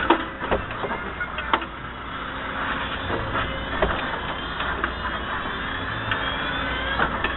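Excavator engine running steadily, with several sharp knocks spread through it.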